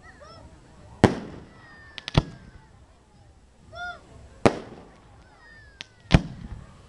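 Fireworks shells bursting: four loud bangs one to two seconds apart, with a few smaller cracks and faint falling whistles between them. A short rising-and-falling hoot sounds between the bangs, about four seconds in.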